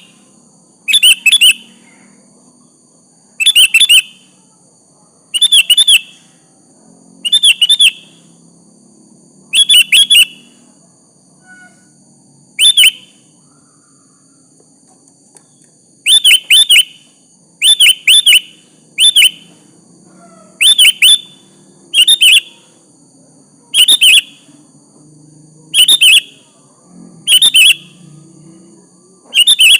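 Sooty-headed bulbul (kutilang) giving short, bright chirping call phrases over and over, one every second or two, very loud and near distortion. A faint steady high whine lies underneath.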